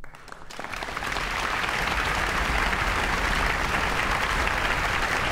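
Concert audience applauding: a few scattered claps at first, swelling within about a second and a half into full, steady applause.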